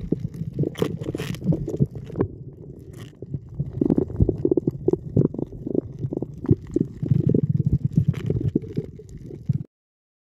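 Muffled low rumbling and knocking of water around a submerged camera, with scattered crackles; it cuts off suddenly near the end.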